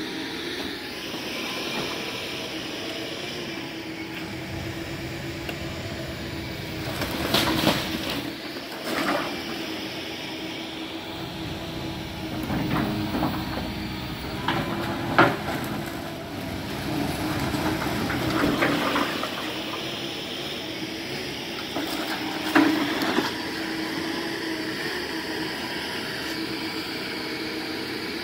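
Diesel demolition machinery running steadily while wreckage of the house is broken up, with irregular cracks and crunches of splintering debris; the sharpest crack comes about halfway through.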